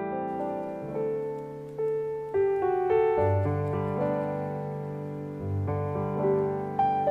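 Background piano music: a slow, gentle tune of single notes over a lower bass line.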